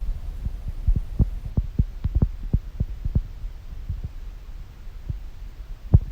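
A Mini Rex rabbit snoring close to the microphone: a low rumble with irregular short clicks, about three a second at first, then sparser, with one sharper click near the end.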